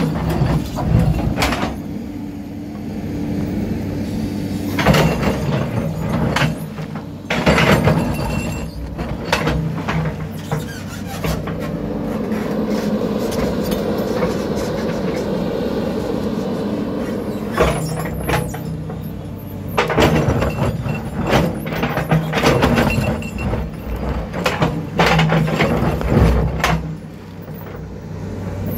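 Caterpillar D7 bulldozer working: its diesel engine runs steadily under load while the steel tracks squeal and clank, with many sharp knocks and clanks throughout.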